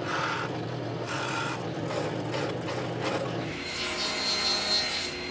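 Drill press motor running while the bit bores into a small block of lignum vitae, the cutting noise rising in several short spells. About three and a half seconds in it changes abruptly to a different steady machine hum with a thin high whine.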